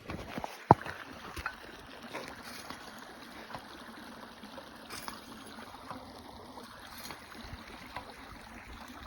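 Shallow creek water running and trickling, with one sharp click under a second in and scattered small knocks.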